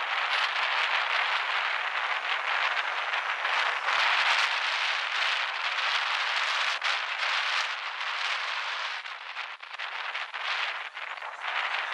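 Jet noise from a McDonnell Douglas MD-80-series airliner's two rear-mounted Pratt & Whitney JT8D turbofans on the runway: a loud, harsh, crackling hiss that dips a few times near the end.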